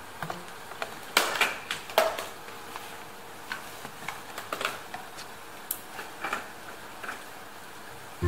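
Toy tongs with metal arms clicking and a paperboard box rustling as felt play donuts are packed into it: scattered irregular taps and light scrapes, a few louder ones about a second in.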